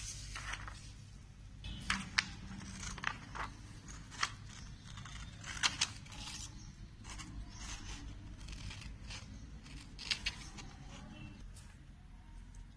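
Scissors cutting through a folded sheet of paper: a series of short, sharp snips at irregular intervals, over a steady low hum.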